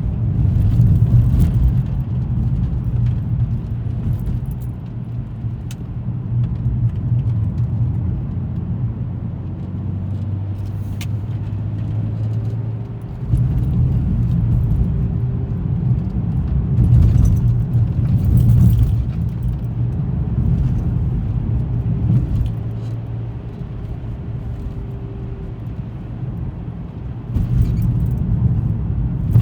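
A car driving on a road: a steady low engine and tyre rumble that rises in level about halfway through and again near the end, with a few faint ticks or rattles.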